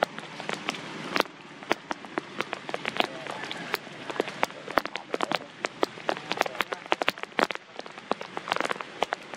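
Rain falling steadily, with loud raindrops tapping close by in quick, irregular succession over the hiss of the downpour.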